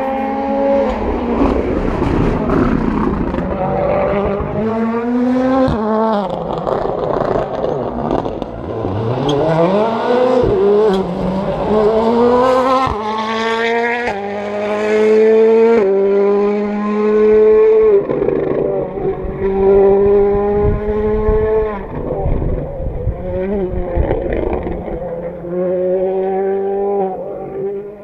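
2017 Ford Fiesta WRC rally car's 1.6-litre turbocharged four-cylinder engine driven hard on a test stage. The engine note climbs repeatedly and drops sharply at each gearshift, with lifts and pickups for the corners.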